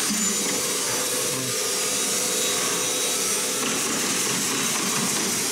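Steady machine noise in a workshop: a constant hiss with an even hum under it, unchanging throughout.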